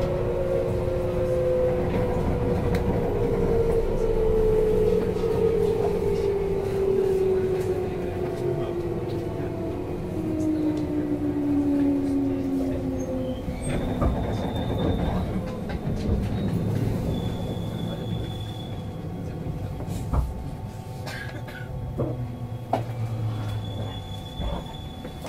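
JR West 221 series electric train slowing into a station, heard from inside a car: the motor whine falls steadily in pitch over the first dozen seconds. After that a high brake squeal comes and goes, with a few knocks, as the train draws to a stop.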